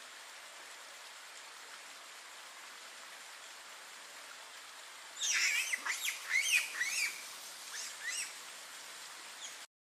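A quick run of high-pitched chirping animal calls, short gliding notes rising and falling over about three seconds from about five seconds in, over a steady background hiss.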